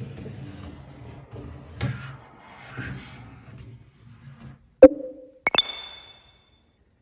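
A low, uneven hum, then a sharp knock with a short ringing, followed half a second later by a double click with a bright, high ringing tone, like a hard object clinking.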